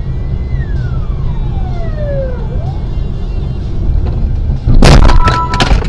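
Steady road and engine rumble heard inside a moving car's cabin. About five seconds in comes a loud crash as the car rear-ends the car ahead, followed by a brief steady tone.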